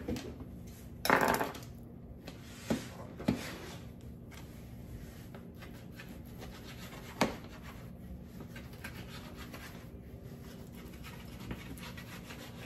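A knife cutting raw bacon on a cutting board: soft scraping strokes, with a few sharper knocks on the board, the loudest about a second in.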